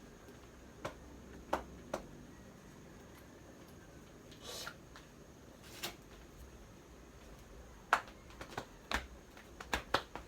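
A spoon knocking and scraping against a pot while stirring macaroni: scattered sharp clicks at irregular intervals, more of them near the end, with one short scrape about four and a half seconds in.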